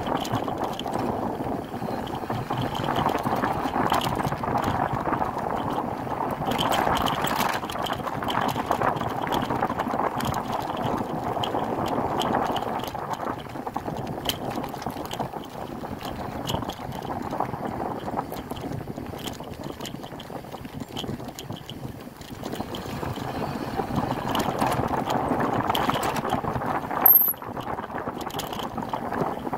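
Mountain bike rolling along a dirt trail: a steady rush of tyre noise and wind on the microphone that swells and eases, with small rattles and clicks from the bike. A short, sharp squeak stands out near the end.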